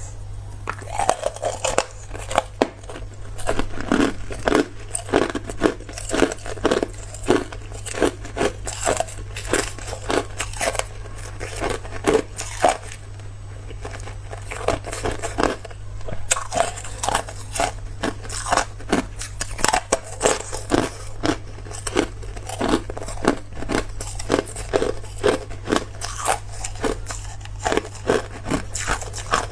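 Hard clear ice being bitten and chewed: a long run of sharp, crackling crunches, about two a second, over a steady low hum.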